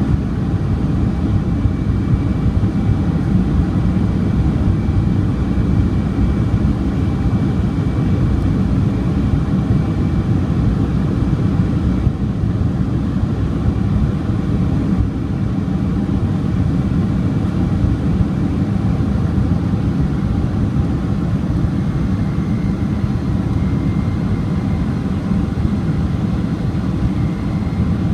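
Boeing 767-300ER's two Pratt & Whitney PW4060 turbofans at climb thrust just after takeoff, heard inside the cabin over the wing: a loud, steady, deep rush of engine and air noise with a faint high whine above it.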